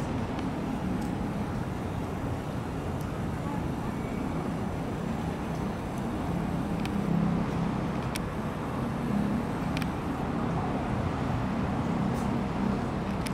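Steady low engine and traffic rumble, swelling slightly about halfway through, with a few faint clicks.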